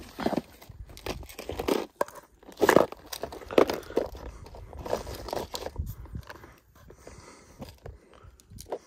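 Irregular crunches and knocks: footsteps on dry, stony ground, then a clear plastic tackle box being handled. The louder crunches come in the first half, and the second half has quieter scattered ticks.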